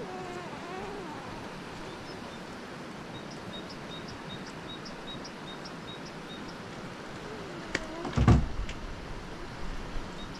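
A single heavy thump about eight seconds in, the loudest sound, over steady outdoor noise; a run of short high chirps, about three a second, comes before it.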